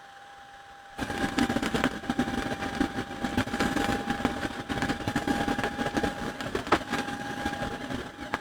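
A small machine running: a steady high whine with irregular rattling and clicking, starting about a second in.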